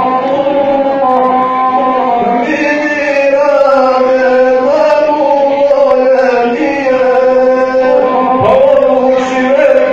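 A guslar sings an epic song in a chanting male voice, accompanying himself on the gusle, a bowed single-string folk fiddle that plays along with the voice.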